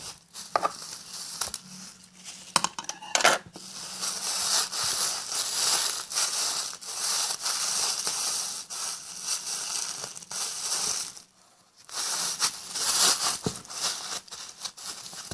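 A soap-and-water-soaked sponge squeezed and kneaded inside a sealed plastic freezer bag: a dense crackling and crinkling of plastic and wet foam, with a short break about eleven seconds in.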